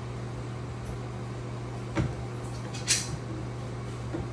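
Two short clicks about a second apart, the second sharper, as the shower valve's trim plate is fitted onto the wall, over a steady low hum.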